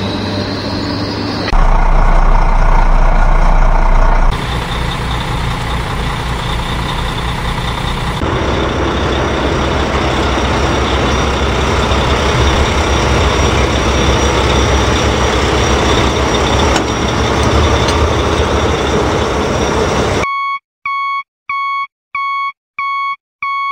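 Steady heavy-vehicle engine running, changing abruptly in level and tone a few times, then a reversing alarm beeping about twice a second near the end.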